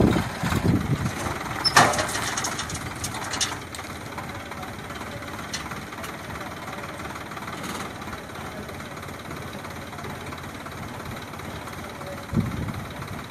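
Sonalika DI 47 RX tractor's diesel engine running, louder in the first two seconds, then steady and quieter. A little after twelve seconds it picks up briefly as the hydraulic tipper starts raising the loaded trailer.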